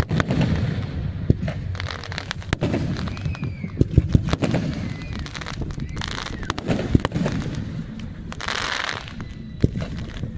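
Fireworks display: a string of sharp bangs and booms over a continuous low rumble, with a short burst of hissing about eight seconds in.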